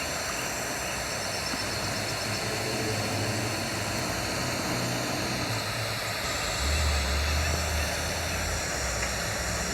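Steady outdoor hiss with the low drone of a distant engine, which swells briefly about seven seconds in.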